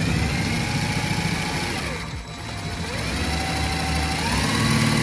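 Cordless DeWalt 20V drill driving a self-tapping screw into the speaker bracket. The motor's whine sags in pitch and stops about two seconds in as the screw loads it. It then starts again and steps up in pitch near the end.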